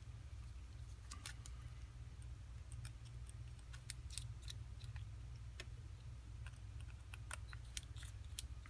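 Faint, scattered small clicks and ticks of a precision screwdriver working tiny screws out of an iPhone's internal metal plate and of the screws being set down, over a low steady hum.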